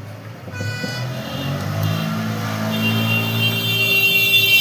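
A motor vehicle engine running with a steady pitch and growing louder.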